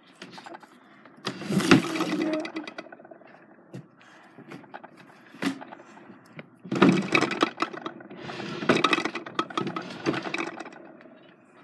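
Small objects from a junk drawer being handled and sorted close by: bursts of clattering and rustling, loudest about two seconds in and again from about seven to ten seconds in.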